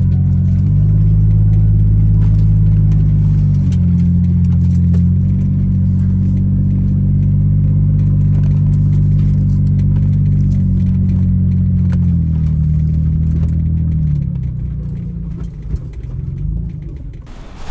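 Jeep Wrangler engine running as the vehicle drives, its pitch shifting up and down in steps with the throttle. It eases off and drops in pitch about fourteen seconds in. Near the end it gives way abruptly to wind noise.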